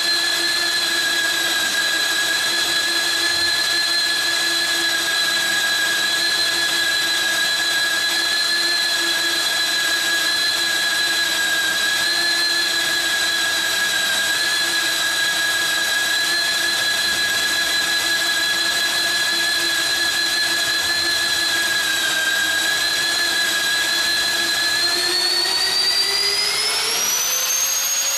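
PRO 36 AUTO magnetic drilling machine's electric motor whining steadily under load as it drives the annular cutter into steel. Near the end the pitch rises smoothly and levels off: the motor speeds up as the load comes off the cutter.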